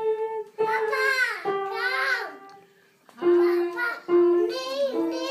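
A young girl singing in a high child's voice, holding long steady notes in short phrases, with a short pause about halfway through.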